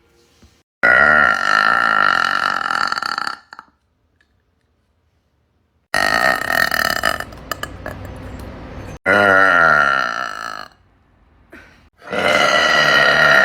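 A young woman burping loudly: four long, drawn-out belches with short silent gaps between them, the last still going at the end.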